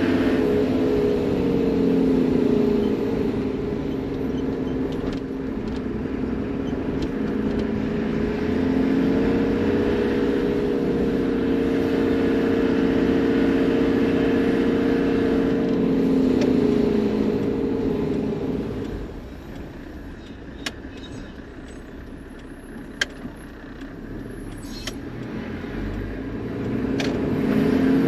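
Toyota Land Cruiser HZJ78 Troopy's diesel engine running while driving slowly, its pitch rising and falling with speed and gear changes. About two-thirds of the way through it drops to a quieter idle or coast with a few sharp clicks, then pulls strongly again near the end.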